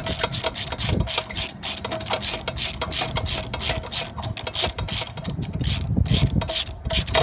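Hand ratchet clicking rapidly and evenly, about four to five clicks a second, as it is swung back and forth on a spark plug socket to unscrew a spark plug from a small Kawasaki twin-cylinder engine.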